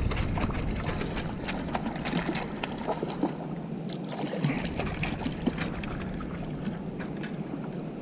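A hooked lake sturgeon splashing at the surface beside the boat, water sloshing, with many short sharp ticks throughout; the splashing is strongest at the start and eases off.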